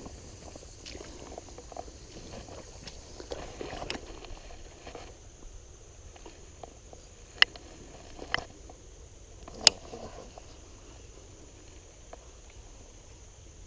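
Shallow river water sloshing and splashing around a wader's legs, with three sharp clicks in the second half.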